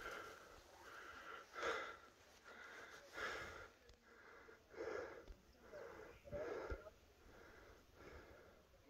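A person's breathing close to the microphone, faint, with about one breath a second.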